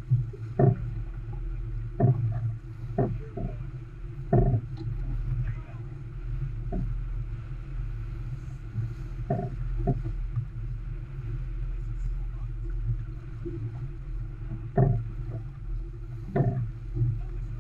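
Steady low rumble of wind and water aboard a heeled sailboat under way, with scattered sharp thumps, several in the first few seconds and again near the end.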